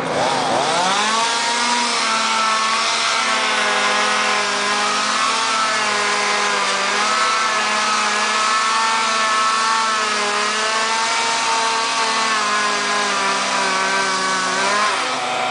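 Chainsaw revving up about a second in, then held at high speed with its pitch wavering slightly, and easing off near the end.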